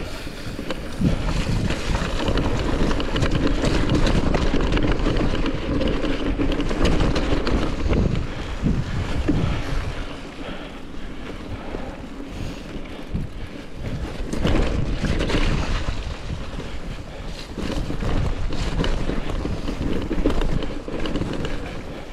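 Wind buffeting the microphone of a mountain bike riding fast down a muddy forest trail, with tyres rolling over dirt and stones and the bike rattling and knocking over bumps. The rush rises and falls as the speed changes.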